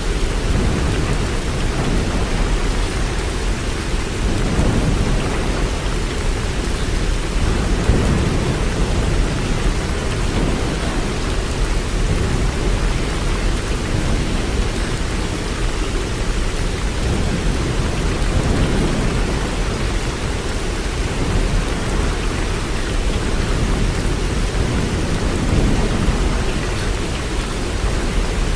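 Waterfall: water falling and rushing steadily, a dense, unbroken noise with a deep low rumble.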